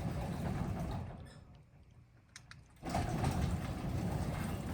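A 3/4 hp Craftsman garage door opener running, then stopping about a second in as the door reaches its open limit. After a few light clicks it starts again and runs steadily, driving the door back down.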